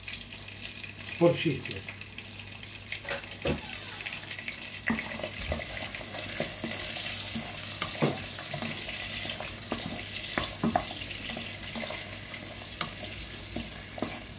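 Chunks of pork sausage and garlic frying in oil in a pan: a steady sizzle, with scattered clicks and knocks of handling.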